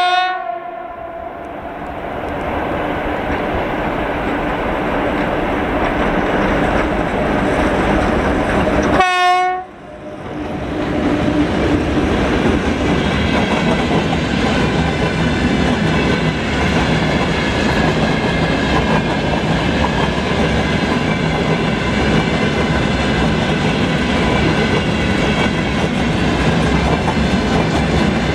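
VL11 electric locomotive with a freight train: a horn blast cuts off at the very start and a short horn blast sounds about nine seconds in. After that the wagons rumble and clatter steadily over the rails as the train runs past, with a faint steady whine under the rumble.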